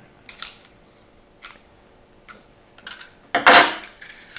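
Light metallic clicks from a CZ 75 SP-01 pistol's steel slide, barrel and guide-rod parts being handled during takedown. About three and a half seconds in comes a louder, longer metal scrape and clink, with one more click near the end.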